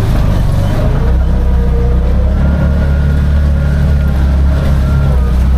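Tuk-tuk engine running steadily while riding, its low rumble growing louder about a second in.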